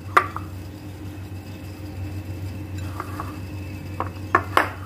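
Hands squeezing and pulling apart a lump of soft chapati dough, with a few sharp clicks: one just after the start and two close together near the end, over a steady low hum.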